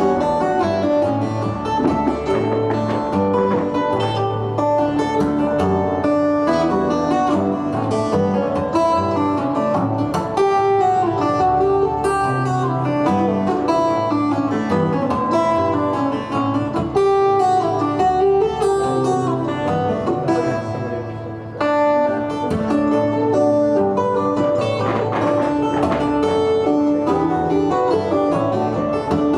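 Acoustic guitar instrumental played live: a busy, bright melody of quickly plucked and ringing notes over a moving bass line. The playing briefly softens a little over two-thirds of the way through, then comes back at full strength.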